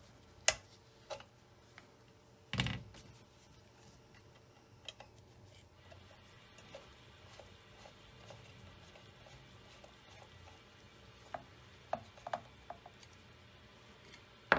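Metal hand tools clicking and knocking against a Singer Featherweight 221 sewing machine and being set down on the bench. A few sharp knocks come in the first five seconds, the heaviest about two and a half seconds in, and a quick cluster of light clicks follows near the end.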